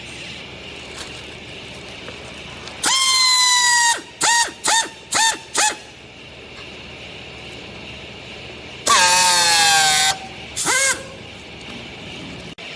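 A high-pitched horn honking: one long blast, four quick short toots, then another long blast that sags in pitch and a final short toot.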